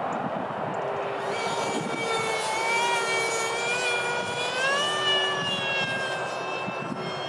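Electric ducted fan of a Freewing Eurofighter RC jet whining in flight, its pitch rising about a second in and again near five seconds, then holding steady. Wind rumbles on the microphone underneath.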